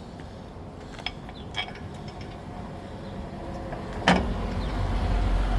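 Light metallic clicks and then one sharp clank, from lug bolts and tools as a spare wheel is fitted to a studless hub. A low rumble swells in near the end.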